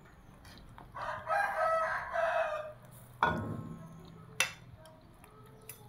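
A rooster crows once, a single call of under two seconds that starts about a second in. A sharp knock and a short clink follow, a metal ladle striking the cooking pot.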